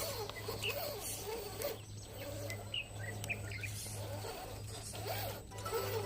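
Electric motor of a radio-controlled rock crawler whining, its pitch rising and falling over and over as the throttle is worked in short bursts on a climb.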